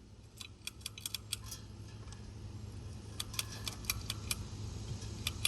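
Two bursts of light metallic clicks and rattles from a ceiling fan being handled and pried at while someone tries to break a part off, with a steady low hum underneath.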